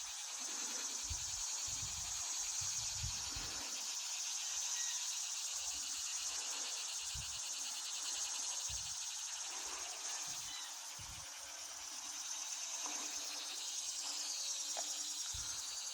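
Steady, high-pitched chorus of insects trilling with a fast, even pulse, with occasional low rumbles underneath.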